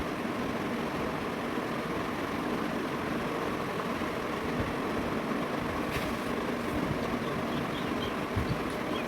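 Steady background rumble and hiss, with a faint click about six seconds in.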